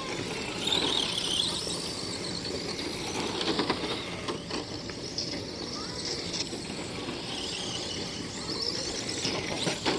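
Radio-controlled race cars running laps around the track, a continuous mix of motor and tyre noise with a few high squeals.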